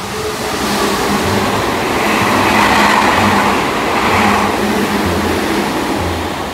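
Train running past a station platform: a rushing rumble that swells to its loudest midway and then fades.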